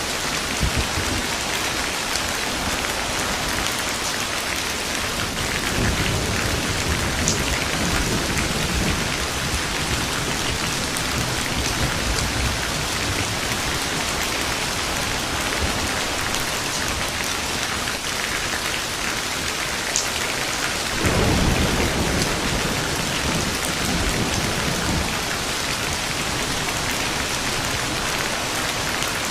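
Steady rain falling, with low rolls of thunder: a rumble about six seconds in and a louder one a little past the twenty-second mark.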